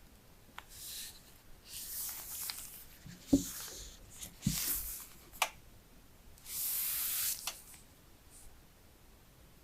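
Hands handling a phone box and its packaging: scattered paper or plastic rustles and rubs with a few sharp clicks. A knock comes about three seconds in and another about a second later, and a longer rub lasting nearly a second comes near the end.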